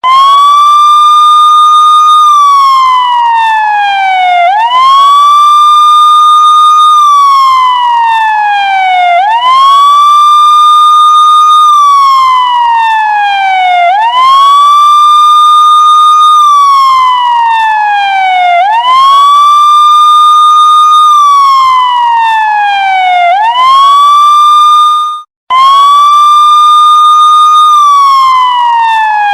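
Police siren sound effect in wail mode: the tone rises quickly, holds high for about two seconds, then slides slowly down, repeating about every four and a half seconds. Once, late on, it breaks off for a moment at the top of a cycle and starts again with a fresh rise.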